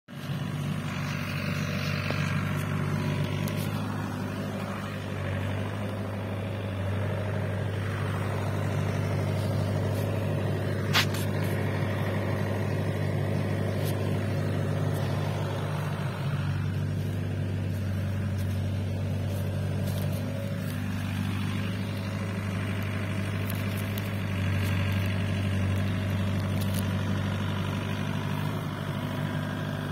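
Mini excavator's diesel engine running steadily with a deep hum, with one sharp click about eleven seconds in.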